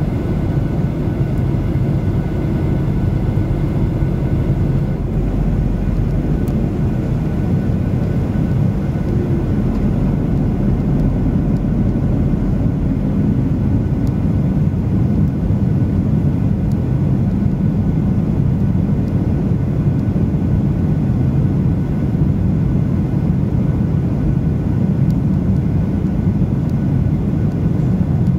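Steady cabin noise of a Boeing 737 on approach, heard from a window seat beside the wing: an even, deep roar of the jet engines and airflow with no sudden changes.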